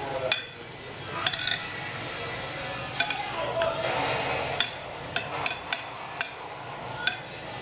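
Fork and knife clinking and scraping against a glass plate while food is cut and scooped: a run of sharp, irregular clinks, about nine of them.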